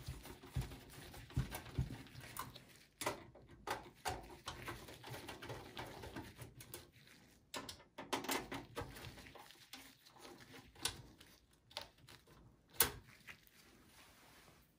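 Screwdriver backing out the screws that hold the power supply to the steel PC case: faint, irregular clicks and short scrapes of the tool and metal.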